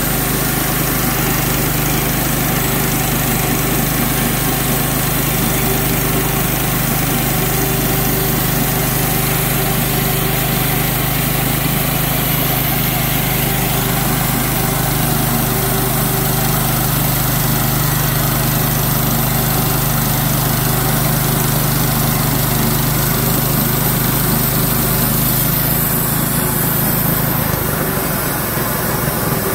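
Clarke bandsaw mill's gasoline engine running steadily under load as the band blade saws through a white pine log. The engine note shifts near the end.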